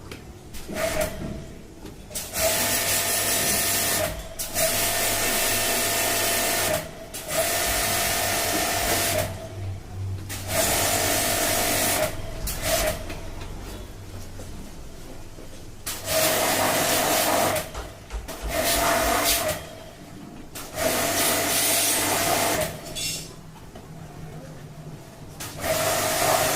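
High-pressure jet service pump washing a clogged air-conditioner condenser coil: the pump motor and the hissing water spray come in about ten on-off bursts of one to two seconds each, with short pauses between.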